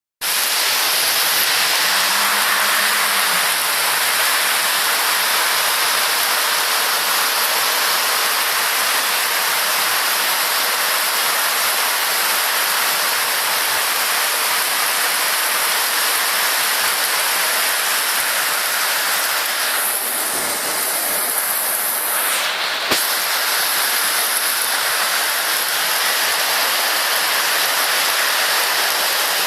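Heavy rain pouring down, a steady dense hiss of water, with a brief change in its sound about twenty seconds in and a single sharp tap shortly after.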